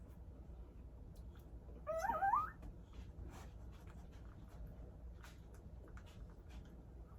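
A newborn puppy gives one short, high, wavering squeal about two seconds in, with faint scattered clicks around it.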